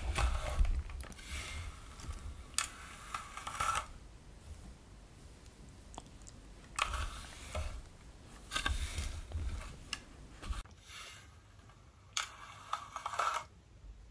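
Close-miked fingers running through and lifting long hair: a crisp rustling in a series of separate strokes, each about a second long with pauses between, some with soft low handling bumps.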